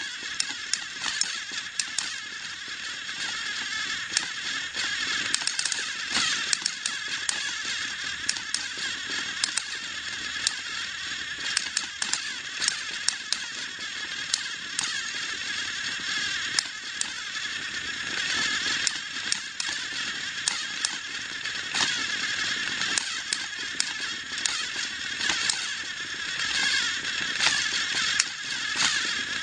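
Motorized toy train running: a steady high motor whir with frequent irregular clicks and rattles from the wheels and plastic track.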